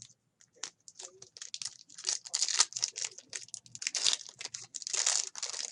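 Plastic wrapping on a box of trading cards crinkling and tearing as it is torn open, a busy irregular crackle that grows louder about two seconds in.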